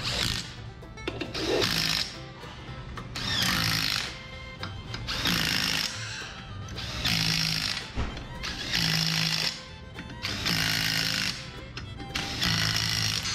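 Cordless impact wrench run down the bolts of a differential case in short bursts, about one every two seconds, seven in all. Background music plays under it.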